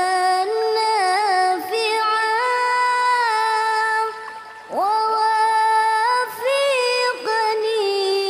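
A high solo voice singing an Arabic supplication in long, drawn-out notes with small ornamental turns, pausing briefly for breath a few times.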